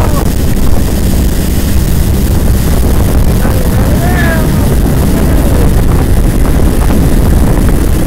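Boat engine running steadily with a low rumble, with wind on the microphone and water rushing past the hull.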